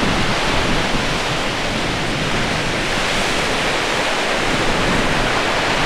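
North Sea surf breaking on the beach, a steady wash of noise.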